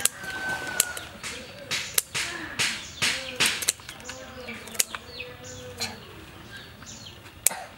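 Scissors snipping river prawns, a quick series of sharp snips and crunchy cuts through shell. Birds call in the background.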